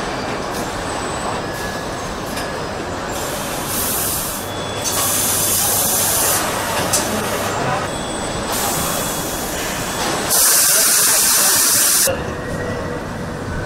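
Car assembly plant noise: a steady machinery din with loud hissing that comes and goes in blocks of one to two seconds, the longest near the end.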